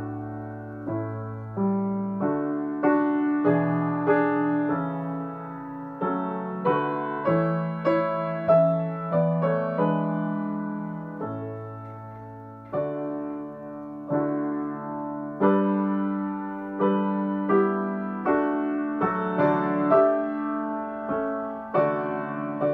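Solo grand piano playing an unhurried piece of chords and melody, each chord struck and left to ring and fade before the next.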